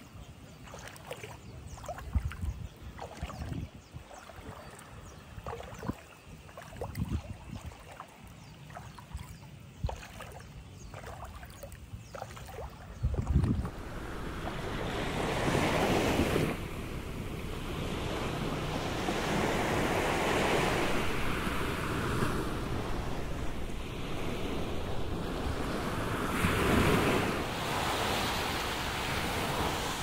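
Shallow seawater lapping and trickling over a sandy bottom, with small splashes. About halfway through, small waves break on a sand beach and the surf rushes up and drains back, swelling loudest about three times.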